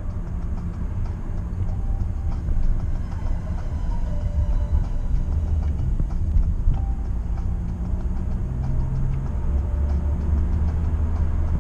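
Steady low rumble of a 2011 Honda Civic's 1.4-litre petrol engine and tyre noise, heard from inside the car while driving. The rumble grows a little stronger near the end.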